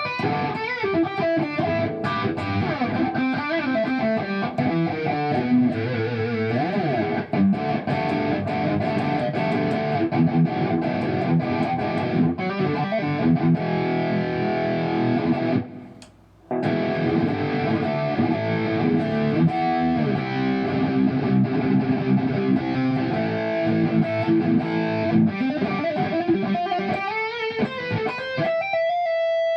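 Electric guitar with Kiesel Polarity active pickups played through an amp in a continuous run of notes and chords. The playing breaks off for about a second midway and then picks up again.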